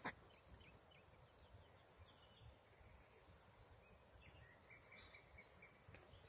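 Near silence: faint outdoor background with a few faint, high bird chirps in the second half and a brief click at the very start.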